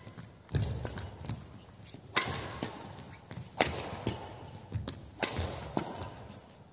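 A badminton rally: sharp racket hits on the shuttlecock, the loudest about a second and a half apart, each ringing on in the echo of a large sports hall. Lighter thuds of the players' footwork on the court fall between the hits.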